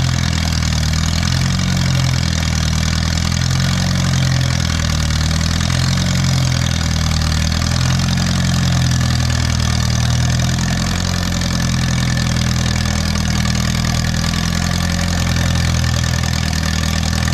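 1952 Farmall Cub's four-cylinder flathead engine running steadily at low speed.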